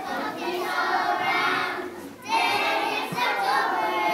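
A group of young children singing together in unison, with a short break in the singing about two seconds in.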